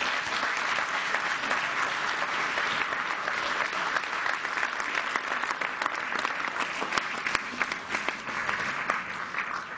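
Lecture-hall audience applauding steadily after the close of a speech, many hands clapping at once at an even level.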